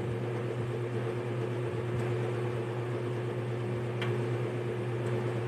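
Steady low motor hum, with a faint click about four seconds in.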